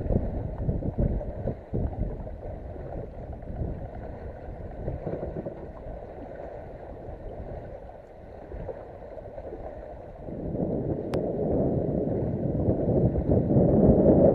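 Wind buffeting the microphone and water lapping against the hull of a small boat. The noise grows louder about ten seconds in, and there is a single sharp click near eleven seconds.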